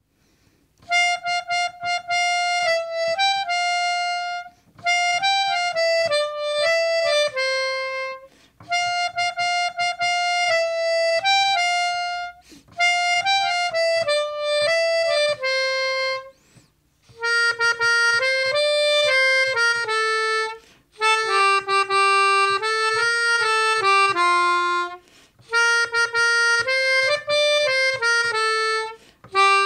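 Melodica playing a single-line melody in short phrases, with brief pauses between them. From a little past halfway the tune moves lower and the notes sound brighter.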